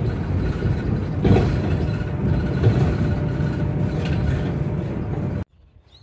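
Bus running along the road: a steady low engine and road rumble with a few louder bumps, cutting off abruptly about five and a half seconds in.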